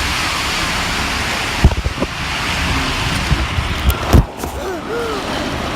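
Steady rushing noise with a few low thumps on the microphone, about a second and a half in and again past four seconds, and faint distant voices near the end.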